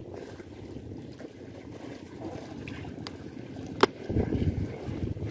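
Wind buffeting the microphone over water lapping against a concrete wall, with gusts swelling in the last second or so. A single sharp click about four seconds in.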